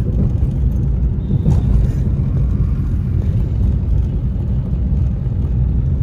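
Steady low rumble of a car's engine and tyres heard inside the cabin while driving along a town road.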